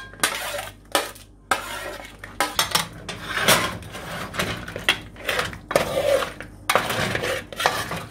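A metal spoon scraping and clinking against a stainless steel pot in a quick, irregular run of knocks and scrapes, as mud crab pieces are pushed into it and stirred through a thick masala.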